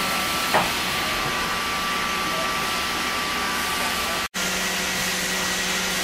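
Haas VF-4SS vertical machining center running, a steady whirring hiss with faint high whines. It cuts out for an instant about four seconds in and resumes with a lower hum added.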